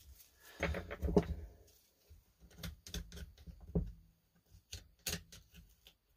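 Metal plates and the orange plastic crankcase of a Husqvarna 240 chainsaw being handled and pried at with gloved hands: a scuffing rustle about a second in, then scattered light clicks and taps. The plates are held on by clips against the studs and won't slide straight off.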